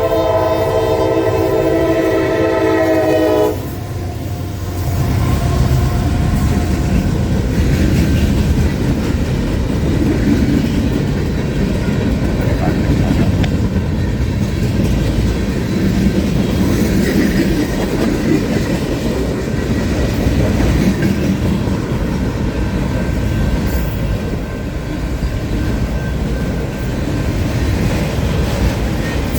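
CSX freight locomotive's multi-note horn sounding a long blast that cuts off about three and a half seconds in. After that the freight train's cars rumble steadily past, wheels running over the rails.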